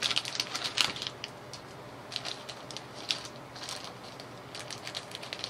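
Crinkly plastic candy bag being opened by hand, crackling and rustling in a quick flurry over the first second or so, then in scattered crackles.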